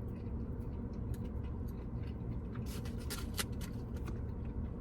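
Faint eating and food-handling sounds: a few soft clicks and rustles, bunched about three seconds in, over a steady low hum.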